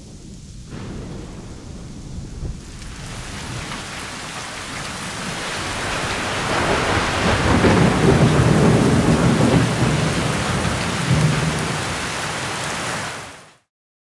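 Rain with a long roll of thunder, swelling to a deep rumbling peak about halfway through, easing off, then cutting off suddenly just before the end.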